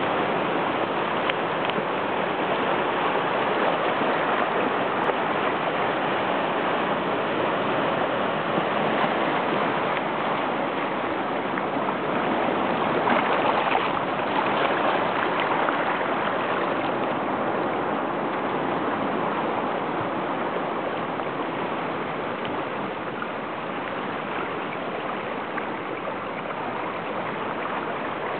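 Seawater steadily rushing and washing over rocks around a tide pool, swelling a little about halfway through.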